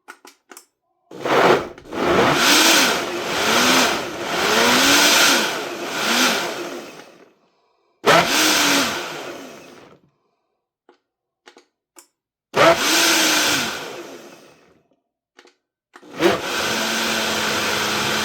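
Living Well countertop blender pulsed in several short bursts, its motor spinning up and winding down each time as it chops frozen berries, banana and spinach in milk and yogurt. Near the end it is switched on to run steadily.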